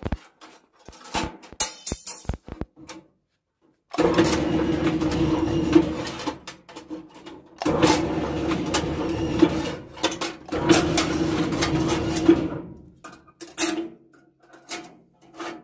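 Electric rebar ring-bending machine: its motor runs three times, each for about two to three seconds, with a steady hum as the bending disc turns the bars. Between the runs, and before the first, steel bars click and clatter as they are loaded into the bending head.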